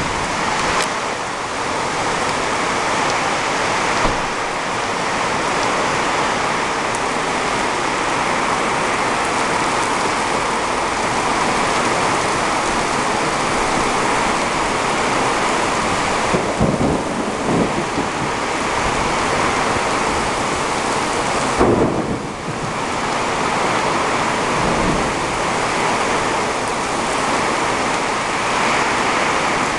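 Heavy thunderstorm rain pouring down steadily on pavement. A short low rumble comes in around 17 seconds in, and a sudden louder clap near 22 seconds.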